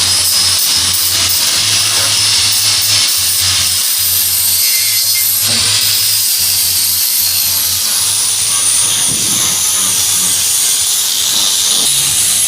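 Background music with a steady bass beat, over the continuous noise of a power tool running.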